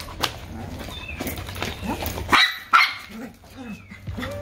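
Dogs barking in excited play, with two loud sharp barks close together about two and a half seconds in and smaller barks around them.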